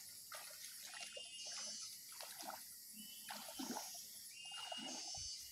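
Legs wading through shallow muddy swamp water, making soft, irregular splashes and sloshing.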